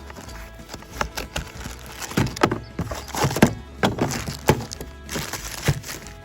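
Background music, with a series of sharp knocks and clicks roughly every half second to second.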